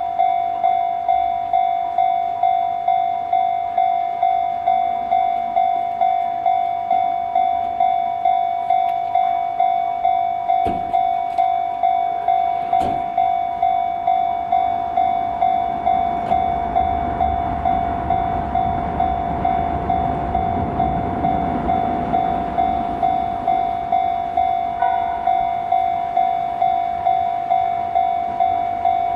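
Japanese railway level-crossing warning bell ringing steadily at about two strikes a second. Partway through, a Shin-Keisei 8800 series electric train runs over the crossing, its wheels and running gear swelling to a rumble over several seconds and then fading, while the bell keeps ringing.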